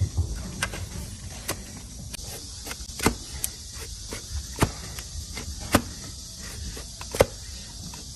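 Sharp knocks and clicks at uneven intervals, about one a second, the loudest ones in the middle and near the end, over a steady high hiss.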